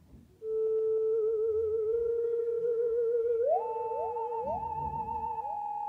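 Eerie theremin-like electronic sound effect played from a story-making app on a tablet, chosen for night-time darkness. A wavering tone with a slow vibrato starts about half a second in. A little after halfway it leaps up an octave, and from then on it swoops upward again and again.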